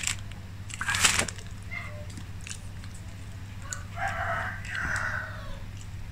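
A rooster crowing once, about four seconds in, the call dropping in pitch as it ends. Before it come short plastic crackles from a water bottle being handled, over a steady low hum.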